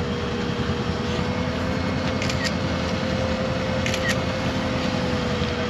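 Polaris Ranger XP side-by-side's engine running steadily, with a constant whine over a low rumble. Two brief high chirps come about two and four seconds in.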